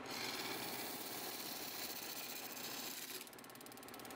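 Wood lathe running, with a tool working the spinning wood. About three seconds in the sound drops to a quieter, fast, even pulsing.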